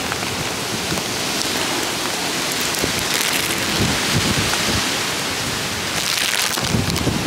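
Heavy hurricane rain pouring steadily, with gusts of wind surging through the trees and buffeting the microphone with a low rumble, strongest a few seconds in and again near the end.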